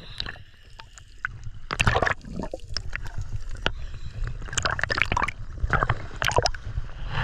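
Sea water sloshing and splashing against a camera held at the surface, in irregular splashes over a steady low rumble of small waves.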